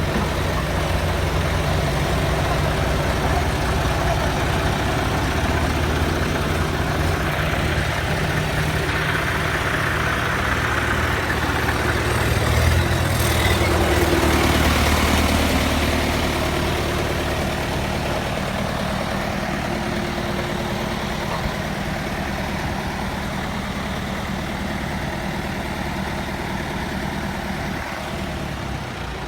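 Heavy vehicle engine running steadily, the truck heavily loaded. It swells louder about halfway through, then eases off.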